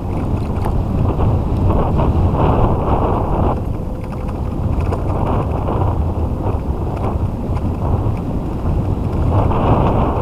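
Wind buffeting the microphone of a dog-pulled kick scooter moving along a dirt track, over the steady rumble of its tyres, with gusts swelling about two seconds in and again near the end.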